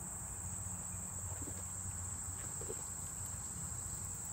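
Steady high-pitched insect chorus trilling without a break, over a low steady rumble.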